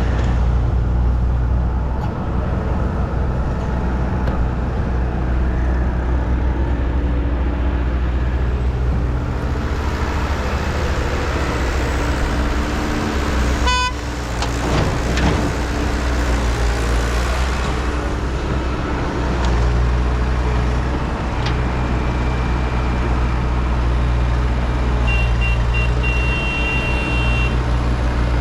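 Heavy vehicle engine running steadily with a deep, even hum, rising a little in places. A short high-pitched tone, like a horn toot, sounds for about two seconds near the end.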